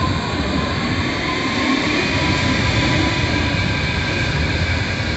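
Rail train running, a loud steady rumble with a high whine held over it.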